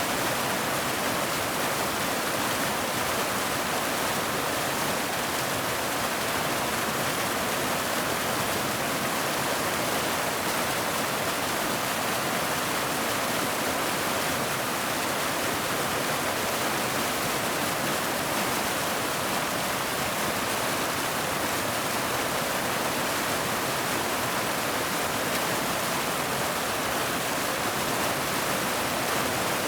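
Waterfall: water pouring and splashing in an even, unbroken rush, mostly hiss-like and high with little low rumble.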